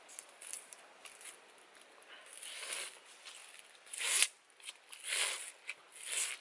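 A person biting and chewing food: a series of short noisy bursts, roughly one a second after the first two seconds, the loudest about four seconds in.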